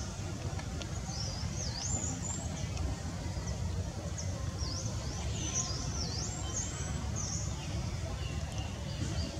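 Small birds chirping, with clusters of quick sweeping whistled notes about a second in and again in the middle, over a steady low rumble.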